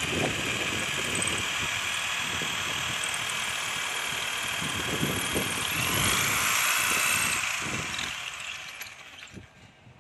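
Corded electric drill boring into a wall, its motor running with a steady whine. The pitch lifts briefly about six seconds in, and the drill winds down and stops near the end.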